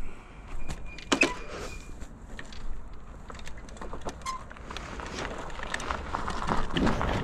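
Folding electric bike being handled and mounted, with a few sharp clicks and knocks, then riding off over a gravel track: the tyres crunching on loose gravel, louder toward the end.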